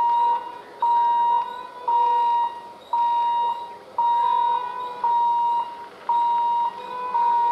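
Electronic warning beeper sounding a steady high beep about half a second long, repeating about once a second.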